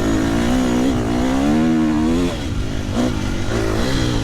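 KTM motocross bike engine revving hard under acceleration, its pitch climbing for about two seconds, then dropping as the throttle is shut, followed by shorter rises and falls.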